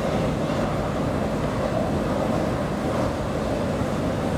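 Escalator running: a steady, even mechanical rumble of the moving steps and drive, heard while riding it.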